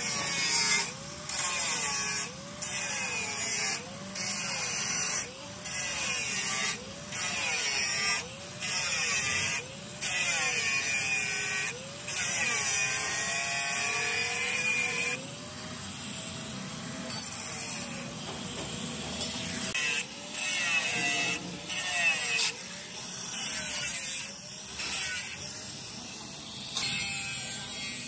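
Electric angle grinder with a cut-off disc slicing through thin steel sheet, the disc biting in repeated bursts with short letups about once a second while the motor's pitch wavers up and down under load. Near the end the sound changes as a flap disc grinds the cut edge smooth.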